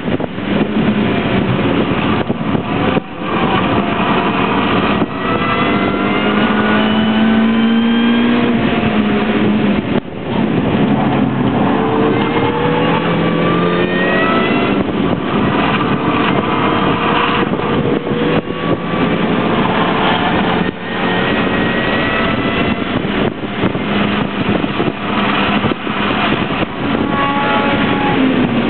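Mini Cooper's engine heard from inside the cabin under hard driving on track, its note climbing in pitch through long pulls. It dips briefly about three, ten and twenty-one seconds in, with road and wind noise underneath.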